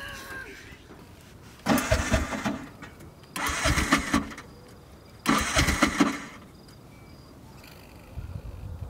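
An auto-rickshaw's small engine being cranked three times, about a second each, without catching, then a fainter fourth try near the end.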